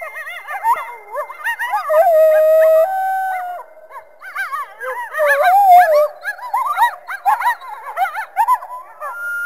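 Several coyotes yipping and howling together: quick rising-and-falling yips overlap with a few longer, held howls.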